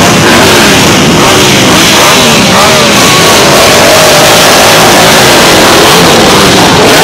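Motorcycle and car engines running and revving, loud and steady.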